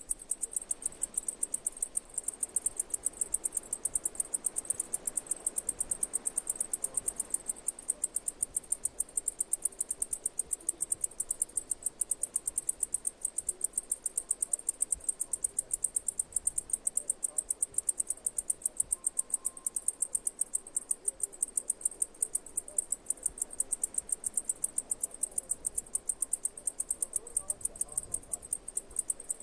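Insect chirping: a steady, fast train of high-pitched pulses, several a second, keeping an even rhythm without pause.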